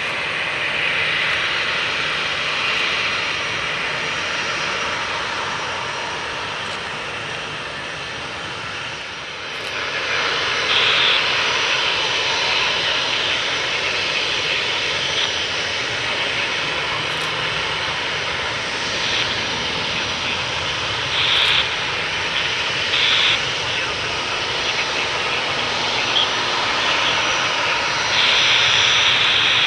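Jet engines of a Boeing 737-300 airliner, a steady rushing noise as it comes in to land. The noise steps up about ten seconds in, with a few short louder swells later.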